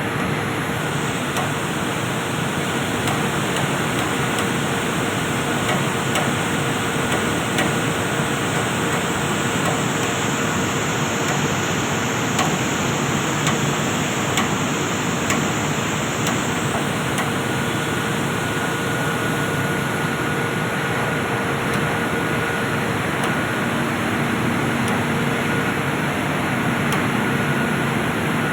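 Steady, loud industrial machinery noise in a boiler plant, an even rush with faint steady hums through it and a few light metallic ticks.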